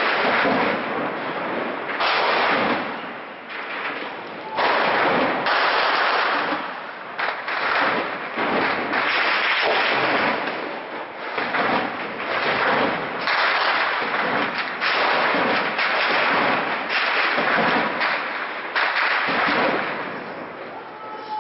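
Heavy automatic gunfire from a street battle, in long, nearly unbroken bursts separated by brief lulls.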